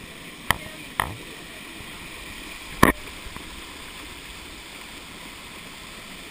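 Waterfall rushing, heard up close with spray striking the microphone, with a few sharp knocks, the loudest about three seconds in.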